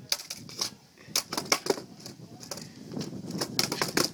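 Kryptonics skateboard clacking and knocking on asphalt during kickflip attempts: a run of sharp clacks, bunched near the start, again between one and two seconds in, and again toward the end.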